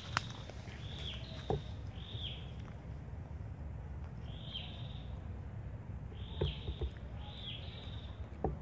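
A bird calling repeatedly in short, high, down-slurred notes, roughly one a second with a pause midway, over a steady low rumble and a few soft clicks.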